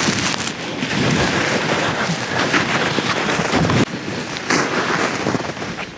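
Wind buffeting the microphone: a loud, rough, uneven rushing noise.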